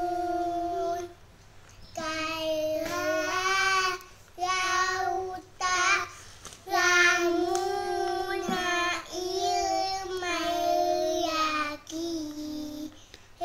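Young boys chanting aloud in a sing-song voice as they read from a book line by line: about seven held, fairly steady-pitched phrases with short breaks between them.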